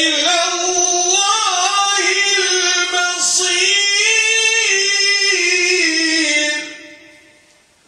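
A man's voice chanting one long held note in the melodic style of Quranic recitation, its pitch wavering a little, fading out about seven seconds in.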